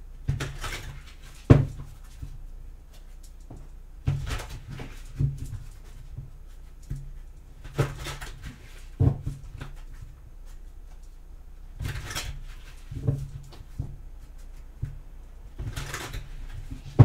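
A deck of tarot cards being riffle-shuffled on a table: a short riffling burst about every four seconds, with a few sharp knocks of the cards in between.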